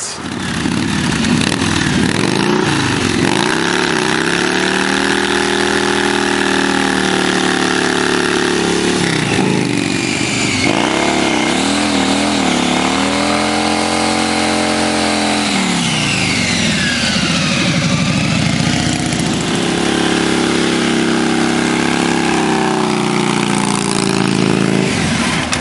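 Harley-Davidson Softail's V-twin engine revved up and down again and again during burnouts, its pitch rising and falling with each blip of the throttle.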